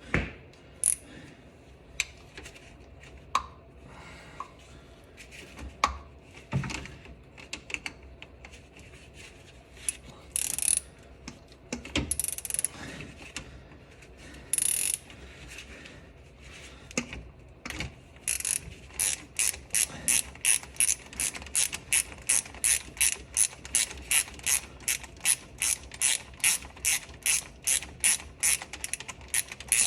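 Socket ratchet backing off the 13 mm bolt that holds the battery's main power cable on the starter solenoid: scattered clicks and knocks of the tool being fitted and a few short rasps, then, in the last third, a steady run of ratchet clicks at about three a second.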